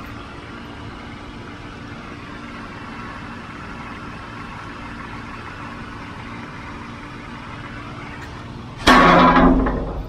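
Steady machine hum. About nine seconds in there is a loud thump that rings briefly.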